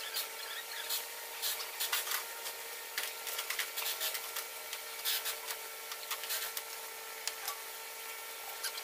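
Hand tools clicking, knocking and scraping on metal in irregular short strokes while an engine is being fitted, over a steady electrical hum.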